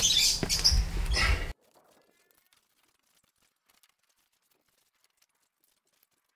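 About a second and a half of noise with a low rumble, then the sound cuts off abruptly to near silence.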